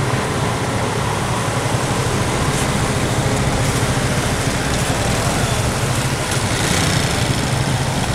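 Cars driving slowly past one after another over a dirt road, their engines running under a steady low hum.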